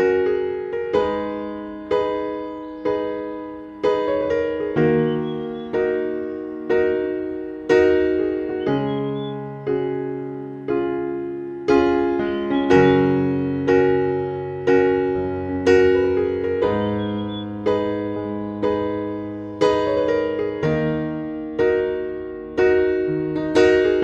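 Slow, gentle piano music for relaxation: soft chords struck about once a second, each fading away before the next.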